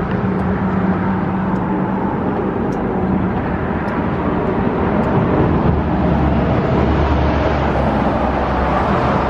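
Steady road and engine noise of a car being driven, with a low hum and a rumble that grows stronger about six seconds in.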